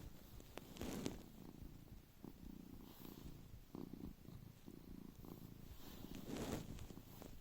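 A cat purring steadily in a low, rhythmic pulse, with louder snoring breaths about a second in and again near the end.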